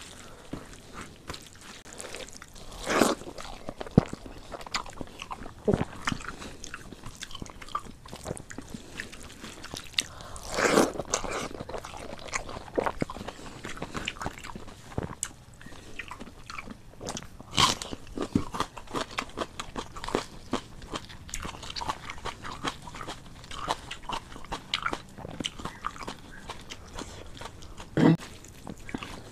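A person eating rice with their hand and chewing close to a clip-on microphone: wet mouth sounds and many small clicks, with sharper crunching bites about 3, 11, 18 and 28 seconds in.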